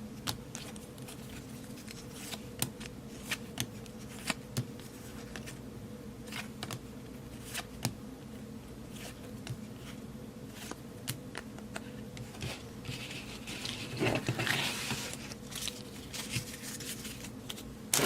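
Baseball cards and a foil pack being handled: scattered light clicks and taps of card stock, and a louder crinkling rustle about fourteen seconds in. A low steady hum runs underneath.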